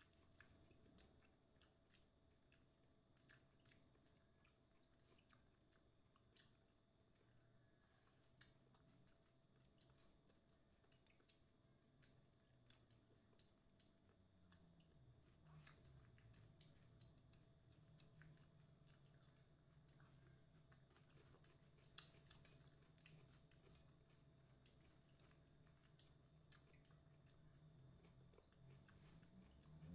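Faint chewing and small scattered mouth and finger clicks of two people eating rice and beef tapa with their hands. A low steady hum comes in about halfway through.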